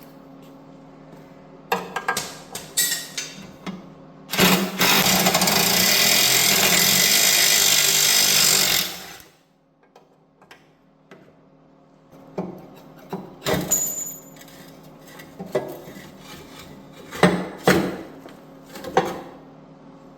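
A handheld power tool runs in one steady burst of about four and a half seconds, starting about four seconds in. Short metallic clinks and knocks of tools and parts come before and after it.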